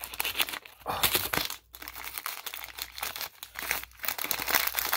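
Paper food wrapper crinkling and tearing in irregular crackly rustles with a few short pauses, as it is pulled away from a hash brown that is stuck to it.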